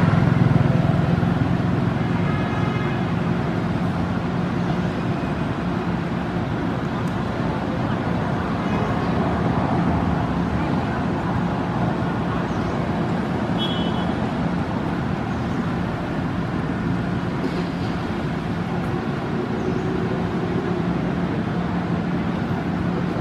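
A small engine running steadily, making a constant low hum.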